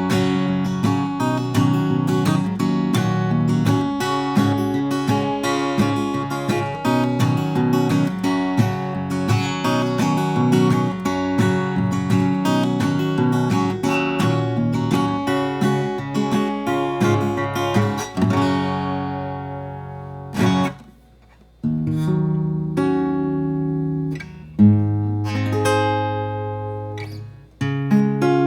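Gretsch Jim Dandy dreadnought acoustic guitar played unplugged, with quick improvised plucked notes. About two-thirds of the way through it gives way to a few single chords struck and left to ring, with a short pause between them.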